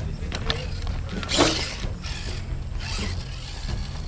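Electric motor and gears of a scale RC 4x4 crawler whirring as the truck is winched and driven up a rocky slope, with a louder burst of noise about a second and a half in.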